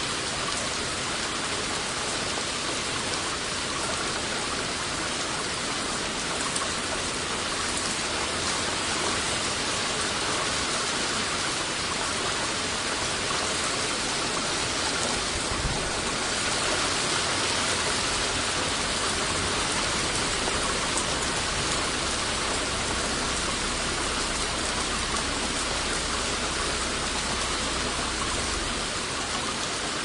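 Steady hiss of splashing, falling water, with a low rumble underneath from about halfway until shortly before the end.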